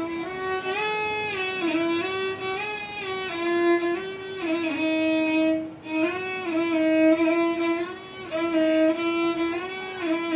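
Solo violin playing a slow melody, bowed, with notes sliding into one another and held, and a brief pause about halfway through.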